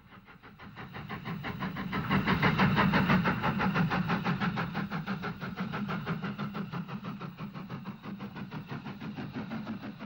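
GNR VS Class 4-4-0 steam locomotive passing at speed with a rapid, even beat of exhaust chuffs. It grows louder over the first few seconds, then slowly fades as the train draws away.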